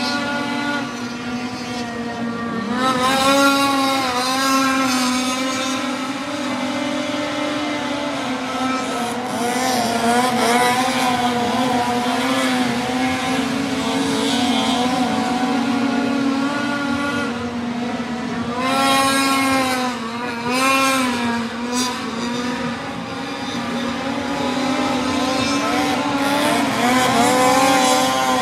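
High-revving engine of a small racing craft skimming across the water, its pitch swinging up and down several times as the throttle is worked.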